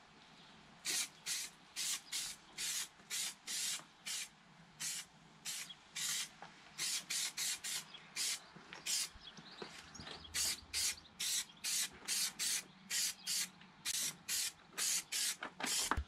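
Aerosol spray can of high-build etch primer spraying in many short hissing bursts, two or three a second, with a couple of brief pauses, as a light coat of primer goes onto a plastic part.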